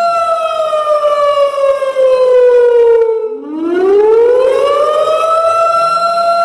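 Warning siren sound effect in a slow wail. A held tone slides down in pitch over about three seconds and fades briefly, then climbs back up to the same steady pitch and holds.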